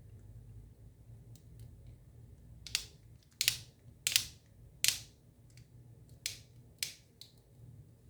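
Sharp plastic clicks and snaps, about six, less than a second apart, as Xbox controller parts are pushed and tried into place.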